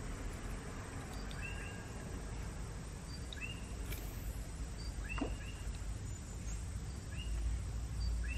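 Outdoor ambience: a steady low rumble with short, falling bird chirps, one or two every second or so.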